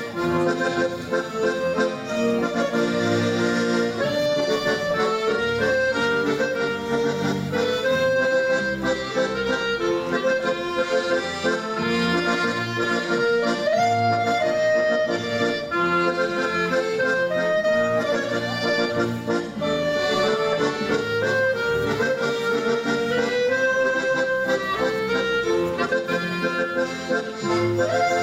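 Polonaise music, a stately dance in triple time, played for the dancers.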